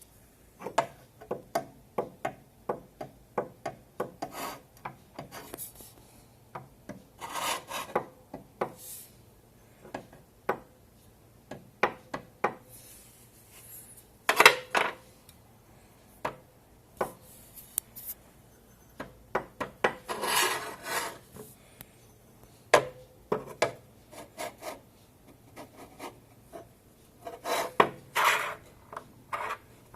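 Parts of a Bosch PTS 10 table saw being handled: irregular clicks and knocks, with a few longer scraping slides, as the parts are shifted against each other.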